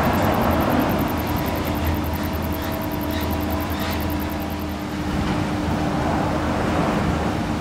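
Detachable gondola lift station machinery running: a steady hum with a constant low tone, and a few light clicks as a cabin rolls out of the station onto the haul rope.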